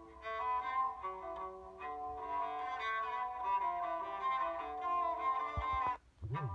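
LG Aristo 2 alarm tone playing: a melody of short held notes. Near the end it breaks off with two low thumps and a brief gap, then the tune starts again.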